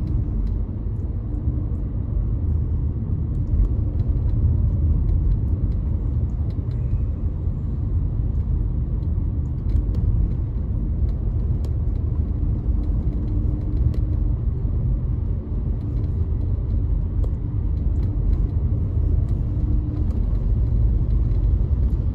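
Steady low rumble of a car driving in city traffic, heard from inside the cabin: engine and road noise, with a faint hum that comes and goes.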